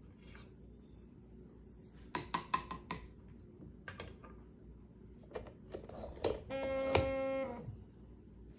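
Light plastic clicks and knocks as a powder cup is handled on a lab scale's pan inside its draft shield. About six and a half seconds in, a small electric motor of the powder dispenser whirs steadily for about a second, with a sharp click in the middle.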